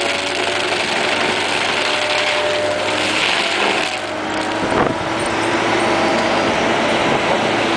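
AHWI SF1100 stump grinder head, driven by a 200 hp AHWI PW144 powerpack, running steadily and grinding a stump into the soil with a steady hiss of chips and dirt. About four seconds in the grinding hiss eases off as the head is lifted clear, and the powerpack engine and hydraulic drive keep running, with a single knock about a second later.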